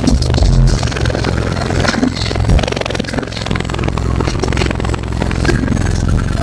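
Eight Sundown X-18 subwoofers driven by two DC Audio 10K amplifiers, playing very loud, deep bass in an SPL car audio build, with constant crackling and rattling over the bass.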